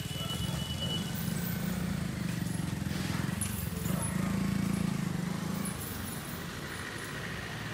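An engine running steadily with people talking over it; the engine sound drops away about six seconds in.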